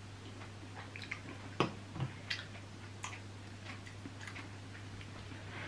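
Noodle-soup eating sounds: metal forks and spoons clicking against ceramic bowls several times, the sharpest about a second and a half in, with slurping and chewing, over a steady low hum.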